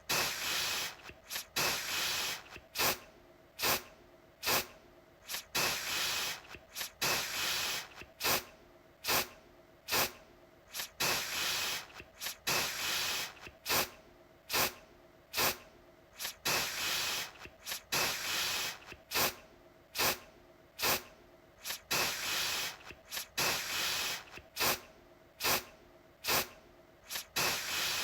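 Aerosol deodorant can sprayed again and again: short hissing puffs mixed with longer sprays of about a second, roughly one to two a second.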